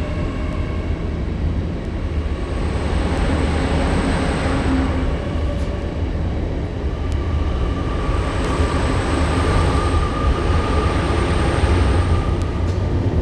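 A train passing over a railway underbridge, heard from directly beneath: a very noisy, steady rumble with faint held tones over it.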